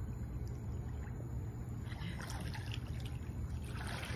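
Pool water splashing and sloshing as a swimmer pushes off the wall and starts backstroke, the arm strokes and kicks building to louder splashing near the end, over a steady low rumble.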